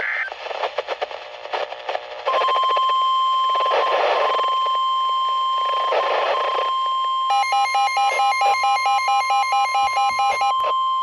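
NOAA Weather Radio warning alarm tone: a steady 1050 Hz tone held for about nine seconds after a couple of seconds of choppy crackle. Rapid electronic beeping, about four beeps a second, joins in over it past the halfway point. Both cut off abruptly near the end.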